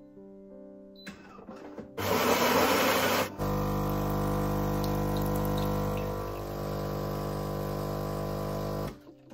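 Philips fully automatic bean-to-cup espresso machine starting a coffee. Its built-in grinder grinds beans loudly for about a second and a half, then the brewing pump hums steadily while coffee pours into the cup, and it cuts off shortly before the end.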